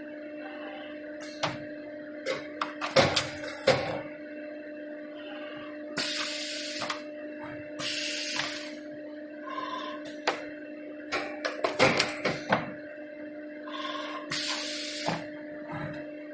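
Automatic busbar assembly line running: a steady machine hum, with clusters of sharp metallic clacks about 3 seconds in and again about 11 to 12 seconds in, and two bursts of air hiss lasting about a second each.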